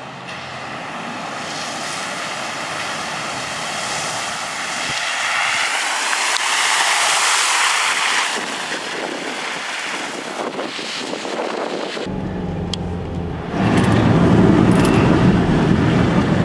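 Car tyres hissing through standing water on a flooded street as a car drives past; the hiss swells to a peak about seven seconds in, then eases. About twelve seconds in it changes to a louder low rumble heard from inside a car, with rain on the windows.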